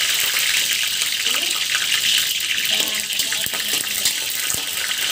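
Hot ghee sizzling in a wok as leaves fry in it, a steady hiss, with a couple of light knocks from a metal spatula about midway.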